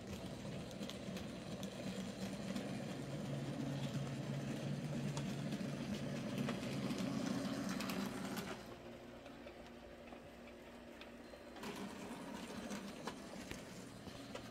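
Electric model train running on the layout's track: a steady motor whir and wheel rumble with fine clicking that grows louder over several seconds, drops away suddenly a little past the middle, then comes back more faintly near the end.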